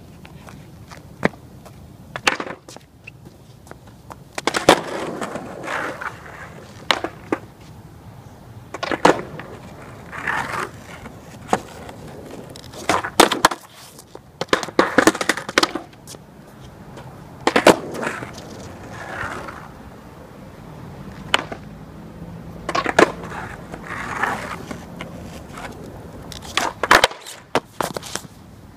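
Skateboard on asphalt: wheels rolling in short runs, with sharp tail pops and the board clacking and slapping onto the pavement again and again as half cab flips are tried. On the last attempt the board comes down upside down.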